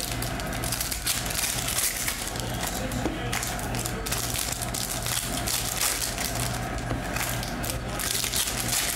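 Foil trading-card pack wrapper crinkling and crackling as hands work it open close to the microphone, with a constant low hum underneath.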